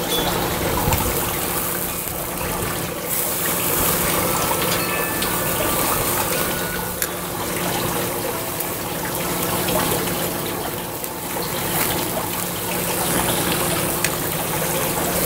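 Rib-eye steaks sizzling on a charcoal grill grate over hot coals: a steady hiss with fine crackling and spitting of fat.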